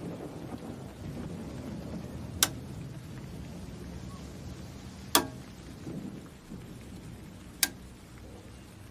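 Three sharp knocks, evenly spaced about two and a half seconds apart, over a steady low rumble.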